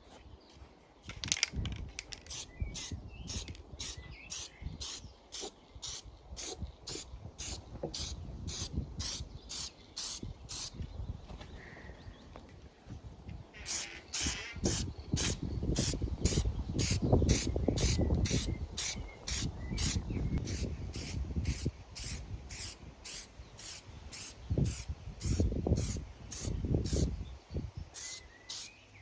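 Aerosol spray-paint can hissing in light passes, dusting a second coat of paint onto a lawn mower deck. A faint high ticking repeats about twice a second.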